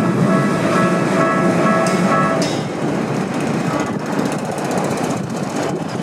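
A Keikyu Line train running past over the level crossing, its wheels rumbling and rattling on the rails. A steady high whine fades out about two and a half seconds in.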